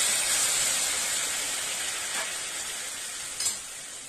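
Tamarind water hitting hot sesame oil and fried green chillies in a kadai, sizzling with a steady hiss that dies down gradually as the pan cools under the liquid. A short click about three and a half seconds in.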